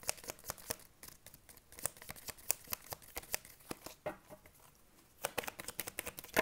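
Tarot cards being shuffled by hand: a run of quick, uneven clicks and slaps of card on card.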